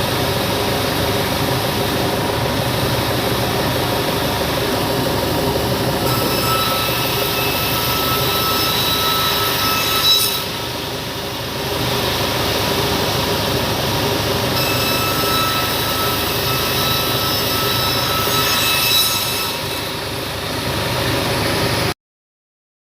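Sawmill band saw running steadily. A high whine sets in twice, about six and fifteen seconds in, each time for four or five seconds, as the blade cuts through wood. The sound cuts off suddenly just before the end.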